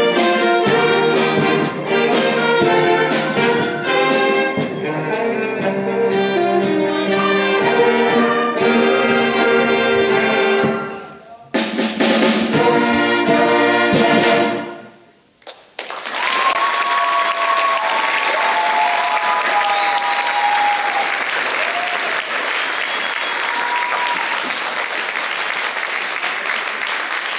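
Student ensemble of violins, saxophones, trumpets and trombones playing the closing bars of a piece, breaking off briefly about eleven seconds in before a final chord that ends about fifteen seconds in. Audience applause and cheering follow.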